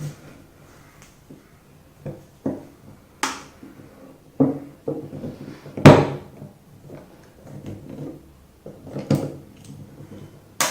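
Scattered clicks and knocks of small metal parts and a screwdriver being handled while an LPG cylinder regulator's ball-lock is taken apart, with its small steel balls being removed. About half a dozen separate knocks, the loudest about six seconds in.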